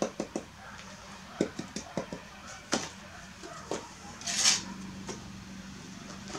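Bricklaying: a mason's steel trowel knocking on brick as the bricks are tapped and set in mortar, giving sharp, irregular knocks. There is a brief, louder rasp about four and a half seconds in, with a faint steady hum underneath.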